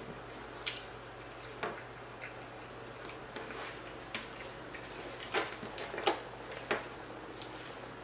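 Eating sounds: a plastic fork clicking and scraping against a clear plastic food tray, about seven sharp clicks spread over several seconds, with soft chewing between them.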